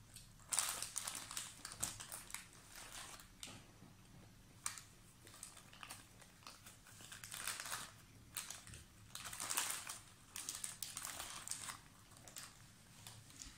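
Plastic snack wrappers crinkling as they are opened and handled, in irregular bursts with short pauses; the loudest bursts come about half a second in and around ten seconds in.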